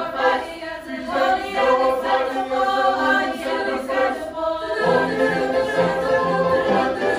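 Youth choir singing in parts. A lower part comes in about five seconds in.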